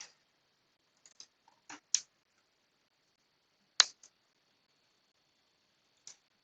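Scattered sharp clicks from working a computer's mouse and keyboard: a quick run of clicks about a second in, the loudest click near the middle, and a last one near the end.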